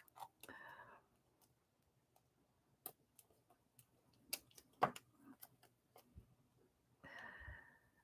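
Near silence with a few faint taps and clicks and some soft rustling from hands handling craft supplies on a glass crafting mat.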